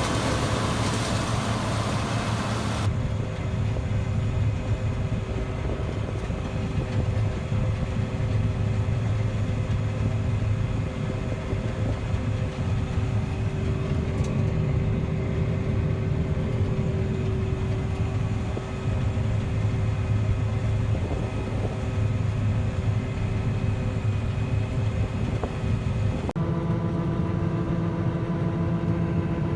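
Large farm machine engine running steadily during oat harvest. A loud hiss cuts off about three seconds in, and the engine note shifts abruptly near the end.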